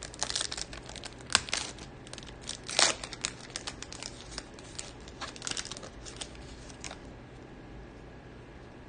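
The shiny wrapper of a 2019-20 NBA Hoops Premium Stock basketball card pack being torn open and crinkled as the cards are pulled out. A run of crackles and rips, loudest about a second and a half and three seconds in, dies away after about seven seconds.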